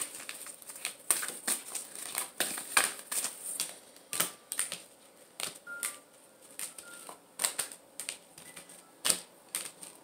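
A deck of oracle cards being shuffled by hand: a quick run of crisp card clicks and flicks, thinning out after about three seconds to scattered single taps and slides as cards are handled on the table.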